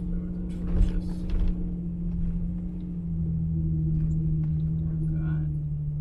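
Toyota Tacoma engine running at steady high revs with the wheels spinning on snow while climbing a hill, heard from inside the cab as a steady hum over a low rumble. A few brief rustling knocks about a second in.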